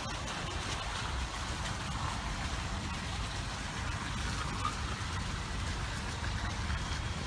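Battery-powered Trackmaster toy train running along plastic track through shallow pool water, a steady noisy rumble and hiss.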